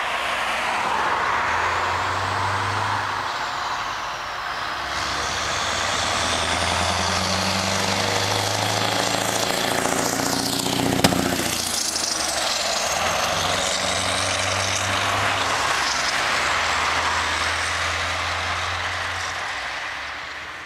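Scania R500 16-litre V8 truck pulling a tank trailer, driving past close by under load: a deep engine note that steps in pitch through gear changes, swelling and sweeping down in pitch as it passes about halfway through, with a sharp click at that moment. Other road traffic passes.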